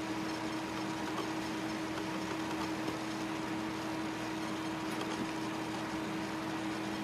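Steady room hum with an even hiss: a constant low tone with no distinct events, as from a running computer or fan.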